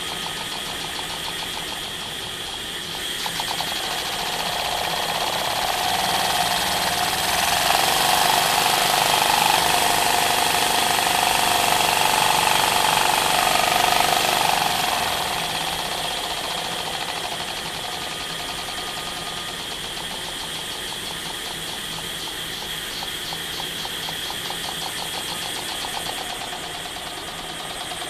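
Homemade miniature single-cylinder engine running at high speed with a rapid, even beat. It grows louder about three seconds in, stays louder until about fifteen seconds, then settles back to a steady, quieter run.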